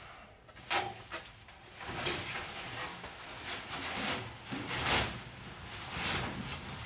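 Fabric car cover rustling and swishing as it is pulled off a car body shell and gathered up, in several uneven swishes.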